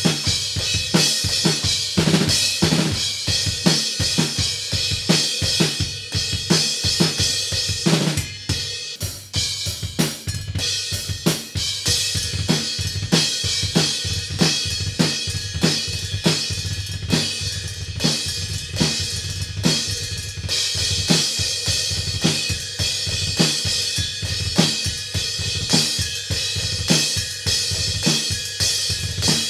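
Full drum kit played in a steady rock groove, with kick, snare and cymbals, that cuts off sharply near the end. Among the cymbals is a homemade bell cymbal hammered from a saw blade: its flat part is very loud with a long sustain, while its bell is very dead, with little to no tone, from the metal being stretched by repeated peening.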